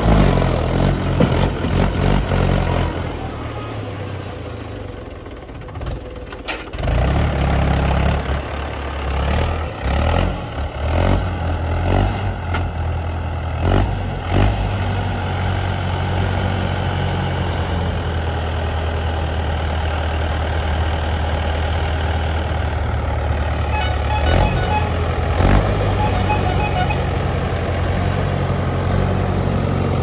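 Mahindra 475 DI tractor's four-cylinder diesel engine running under load, pulling a loaded trailer. Sharp knocks and clanks come and go during roughly the first half. The engine then runs at a steady speed.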